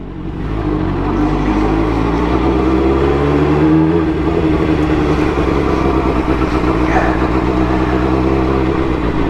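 Suzuki GSX-R600 sport bike's inline-four engine pulling away and riding at low speed, its pitch rising over the first few seconds and then holding fairly steady.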